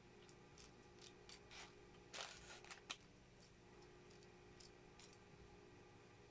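Faint clicks and rattles of small Lego plastic pieces being picked through by hand on a table. About two seconds in there is a brief louder rustle, ending in one sharp click.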